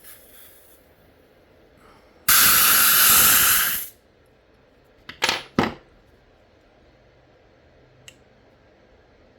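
CO2 gas hissing out of an airsoft pistol as all of its gas is dumped at once, in one loud hiss lasting about a second and a half. Two short spurts follow about a second later. The escaping gas chills the gun until it frosts.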